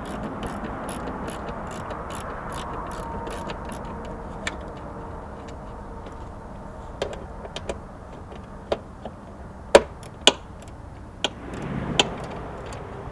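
Socket ratchet clicking steadily, about three clicks a second, as a 10 mm bolt on the ECU bracket is loosened. After that, scattered light metal clicks and two sharper knocks about ten seconds in.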